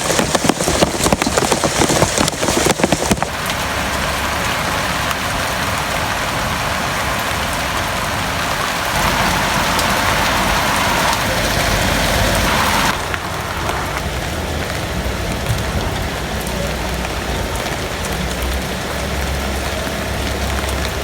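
Heavy rain falling in a steady hiss, with dense close drop impacts for the first few seconds. It grows louder for a few seconds midway, then drops back suddenly to a steadier downpour.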